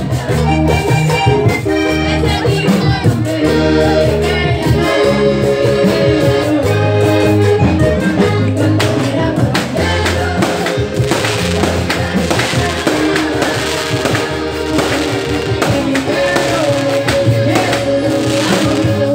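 Live Latin American band music led by an accordion, with a bass line and percussion keeping a steady beat.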